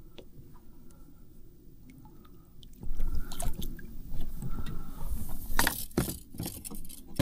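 Low water and air noise, then from about three seconds in splashing water with irregular clattering knocks and clicks, a couple of them sharp near the end.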